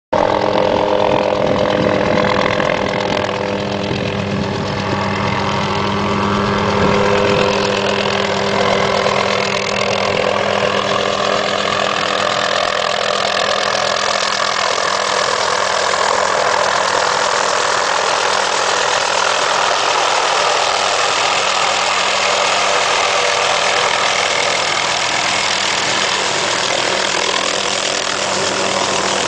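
Hughes 500 helicopter's turbine engine and rotors running as it flies in with a spray rig slung beneath and comes to a low hover. A steady, loud hum with a whining whir that holds for the whole stretch.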